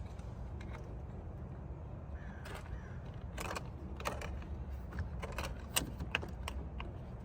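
Scattered small clicks and taps of plastic clips and trim parts being handled and pressed into place inside a car door, over a steady low rumble.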